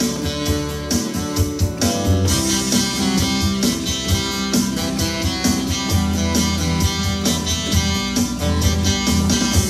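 Yamaha Electone electronic organ playing a pop-song arrangement: melody and chords on the manuals over a steady bass line, with a built-in rhythm keeping an even drum beat.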